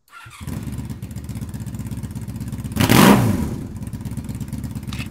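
Motorcycle engine starting up and running with an even low pulse, with one brief rev that swells and falls away about three seconds in.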